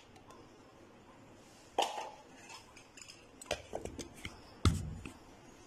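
Glass blender jug and its lid being handled: a few separate clinks and knocks, the loudest a sharp knock with a dull thump near the end.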